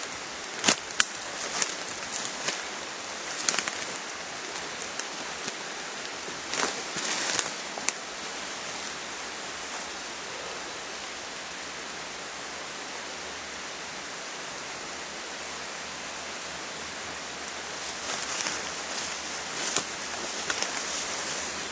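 Brief crackles and rustles of leaves and twigs underfoot, moving through woodland undergrowth, over a steady hiss. The crackles come in the first few seconds and again near the end, with a smooth stretch of hiss alone in the middle.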